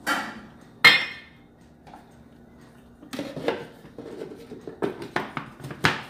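A metal spoon clinks twice against a plastic blender jar as baking powder is tipped in, the second clink ringing briefly. About three seconds in, a run of plastic knocks and clatter follows as the lid is fitted and pressed onto the jar, with a sharp knock near the end.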